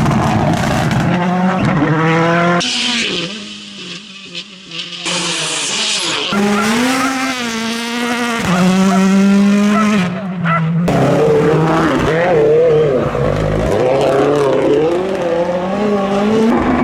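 Rally car engines revving hard and climbing through the gears, with pitch steps and throttle lifts, in several spliced passes. There is a quieter, hissy stretch about three seconds in.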